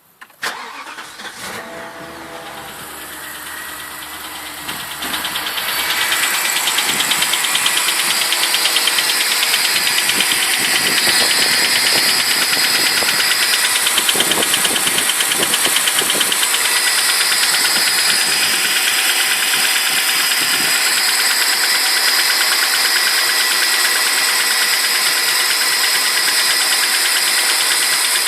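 BMW 745i's N62 4.4-litre V8 cold-starting and then idling with a rapid clattering, knocking tick, louder from about six seconds in. The owner suspects a worn timing-chain tensioner.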